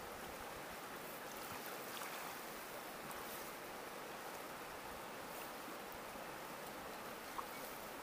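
Steady faint rush of running stream water, with one small click near the end.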